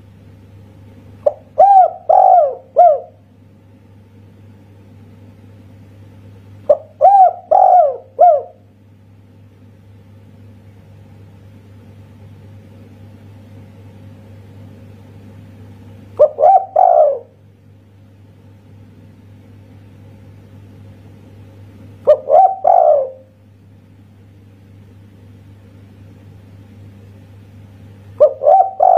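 Spotted dove (tekukur) cooing: five short phrases of three or four notes, one about every six seconds, the later phrases shorter, the last cut off at the end. The song is of the 'kuk satu' type, ending on a single 'kuk' note, and sits over a steady low hum.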